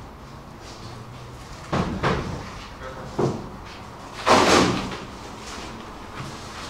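A few sudden knocks and bangs: two close together about two seconds in, a smaller one at about three seconds, and the loudest, a longer bang with a short ring, just after four seconds.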